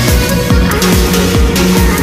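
Electronic dance music with a deep kick drum on a steady fast beat under held synth tones.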